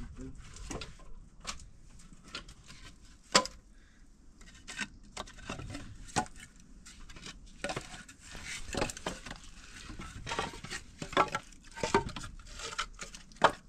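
Dishes and cooking utensils being handled: irregular clicks, knocks and clatter, with a few sharper knocks, the loudest one near the end.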